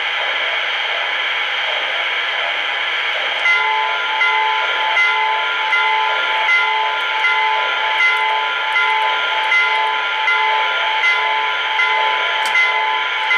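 Lionel O-gauge steam locomotive's onboard sound system at a standstill: a steady hiss of steam. From about three and a half seconds in, a bell starts ringing about once every three quarters of a second.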